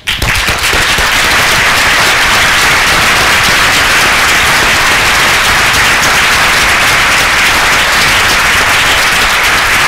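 Audience applauding in a large hall, loud, steady clapping that breaks out suddenly and keeps going.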